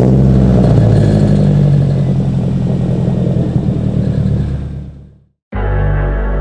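Nissan 240SX's four-cylinder engine running steadily and loudly, then fading out about five seconds in; music begins just after.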